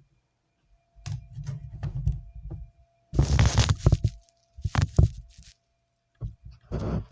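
Handling noise: several spells of low rumbling and rustling with a few sharp clicks, separated by dead silent gaps.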